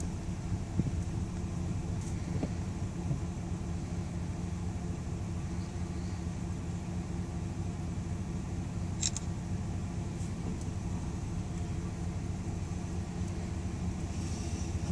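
Car engine and road noise heard from inside a slowly moving car: a steady low rumble, with a short click about nine seconds in.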